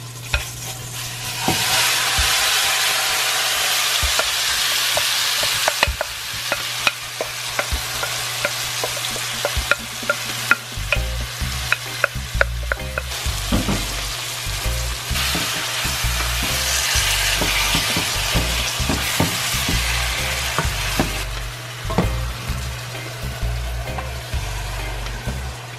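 Seasoned goat meat sizzling loudly in a metal pot of hot oil and burnt curry, the first stage of browning the meat. A wooden spoon stirs it, knocking and scraping against the pot many times. The sizzle swells twice, near the start and again around the middle, over a steady low hum.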